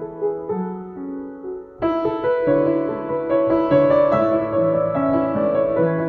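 Freshly tuned Yamaha JX113T acoustic upright piano being played. It starts with softer single notes, then moves into fuller, louder chords from about two seconds in.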